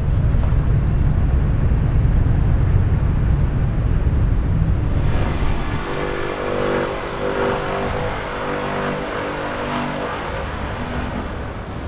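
Outdoor traffic ambience: a heavy, steady low rumble of vehicles for about five seconds, then a change to a busier, higher street-traffic background with mixed pitched sounds over it.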